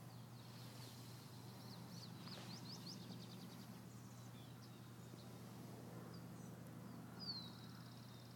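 Faint songbird chirps over a steady low background hum: a quick run of chirps about two to three seconds in, and a louder falling chirp near the end.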